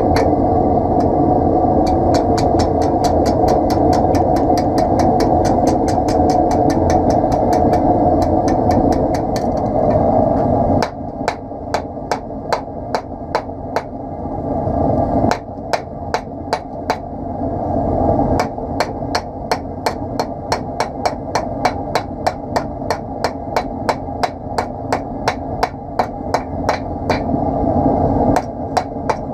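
Steel being forged with a hand hammer on an anvil: a long run of sharp ringing blows, about two to three a second. Behind the blows runs a steady rushing noise that is loudest in the first ten seconds and dips after that.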